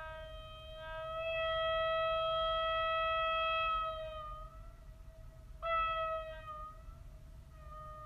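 Southern African marine horn sounding one steady note rich in overtones. The note grows louder about a second in, then sags slightly in pitch and fades about four seconds in. A second, shorter blast starts abruptly about five and a half seconds in and fades the same way.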